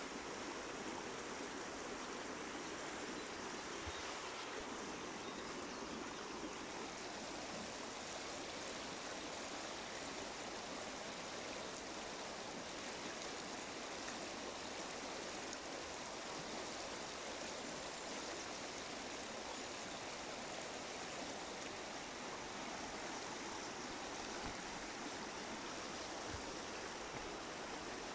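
River water flowing with a steady, even rushing.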